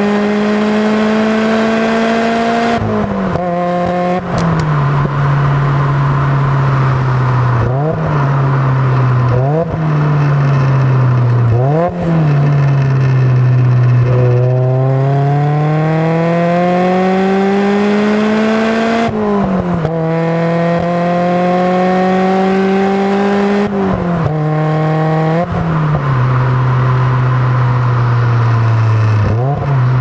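Supercharged 1996 Mazda MX-5 four-cylinder engine with a Racing Beat exhaust, heard at the tailpipe, pulling hard through the gears. The pitch climbs in long pulls and drops sharply at gear changes about five times, with a few brief dips in between.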